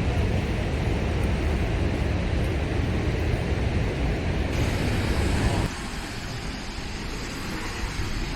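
Steady rushing rumble of Snoqualmie Falls' plunging water, a 268-foot waterfall, with its level dropping suddenly about two-thirds of the way through.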